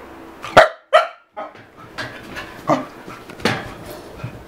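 Young Keeshond barking in several short, sharp barks, the loudest two close together about half a second in, then more spaced out.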